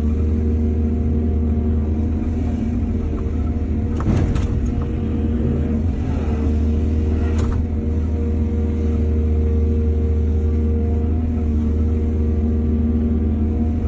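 Excavator engine running steadily under load, with a brief clatter about four seconds in and another just past seven seconds.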